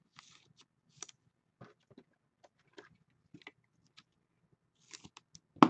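Trading cards handled by hand: faint scattered clicks and scrapes as glossy cards slide against each other and are shuffled, with one sharper click near the end.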